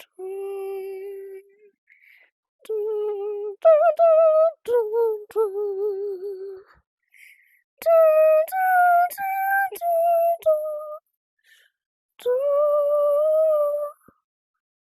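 A high-pitched voice singing a wordless tune, holding each wavering note for a second or two, with stepwise changes in pitch and abrupt silent gaps between phrases.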